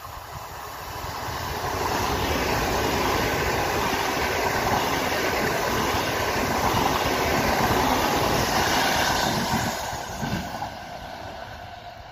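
PKP Intercity ED250 Pendolino electric train passing at speed with a rush of wheels on rail. It builds over about two seconds, stays loud for several seconds as the carriages go by, then fades as it draws away.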